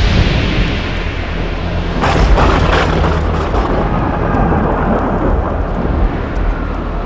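Thunder sound effect: a heavy, continuous low rumble, with a sharper crackling clap about two seconds in that rolls away into the rumble.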